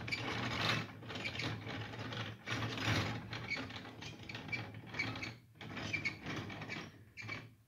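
Hand-turned wooden gear train of a homemade Antikythera-style mechanism: its wooden planetary gears meshing and clicking in a steady clatter, with a few brief breaks.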